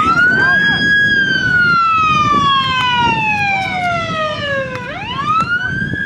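Emergency vehicle siren in a slow wail: the pitch rises in the first second, falls slowly over about four seconds, then climbs again near the end.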